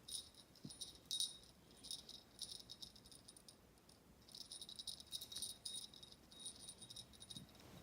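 Small bell on a pet's collar jingling faintly in irregular shakes, with a pause of about a second near the middle.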